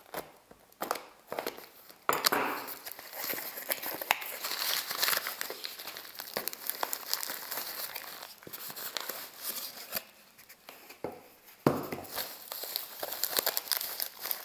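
A cardboard parcel being opened by hand. A few sharp clicks come first as the tape is cut. From about two seconds in, thin white packing wrap rustles and crinkles as it is handled and pulled out, with a sharper burst of crackling near the end.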